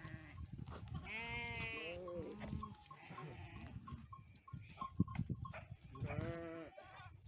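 Chios sheep bleating: two long bleats, one about a second in and one about six seconds in, among scattered knocks and scuffling.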